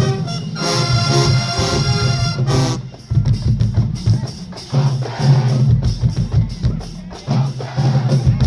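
HBCU marching band: the brass holds loud sustained chords that cut off about two and a half seconds in. The drumline then carries on alone with a percussion cadence of snare and bass drum hits.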